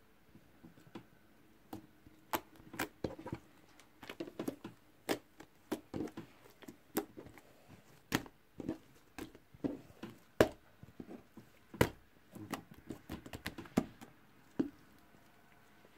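A glossy green borax-activated PVA-glue slime being kneaded and poked by hand, giving irregular sticky clicks and squelches several times a second, the loudest about ten and twelve seconds in.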